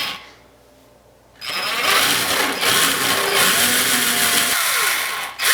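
Electric drill boring a hole through drywall for a drywall anchor. The motor starts about a second and a half in and runs with its pitch wavering under load, then stops briefly just before the end and starts again.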